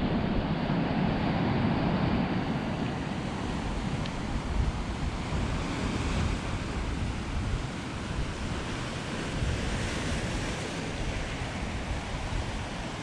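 Ocean surf washing in steadily, with wind rumbling on the microphone.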